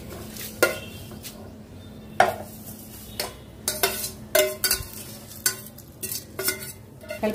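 A spoon stirring in a pot, with irregular clinks and knocks against its sides. A low steady hum sits underneath.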